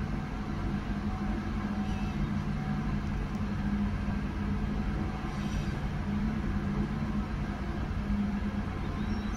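Ship's machinery running with a steady low hum under a constant rush of noise.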